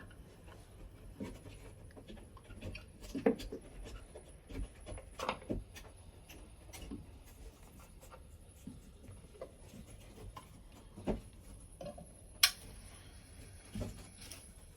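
Quiet work sounds at an opening cut in a wall: scattered light knocks and clicks of handling, with a sharper click about twelve and a half seconds in.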